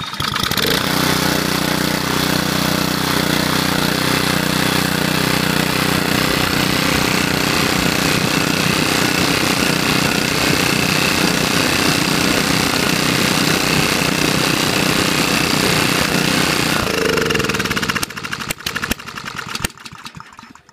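Honda GC160 single-cylinder overhead-cam engine on a rototiller, starting on the first pull and running steadily at full throttle. About 17 seconds in its speed drops, it sputters and backfires a little, and it stalls just before the end. This is the recurring fault being chased, where the engine stalls after running about 15–20 seconds with the choke open.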